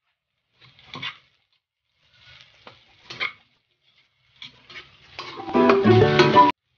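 A metal spatula scrapes and tosses sliced carrots and bell pepper in a wok: a few separate scrapes, then a louder stretch of fast stirring with ringing metal that stops abruptly near the end.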